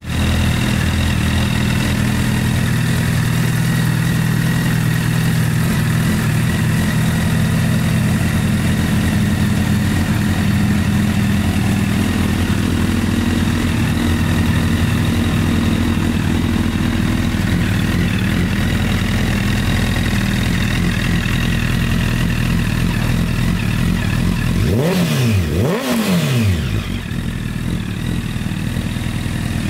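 Honda CBR1000RR's inline-four engine idling steadily through an aftermarket carbon-fibre silencer, blipped twice in quick succession about 25 seconds in, each rev rising and falling back, then settling to a slightly quieter idle.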